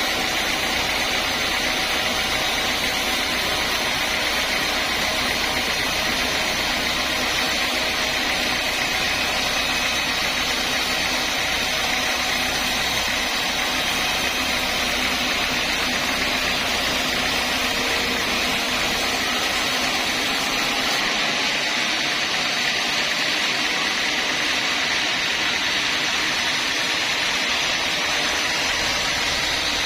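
Sawmill saw and its machinery running steadily during log sawing, a continuous mechanical noise with no breaks. About 21 seconds in, the low rumble thins out while the noise carries on.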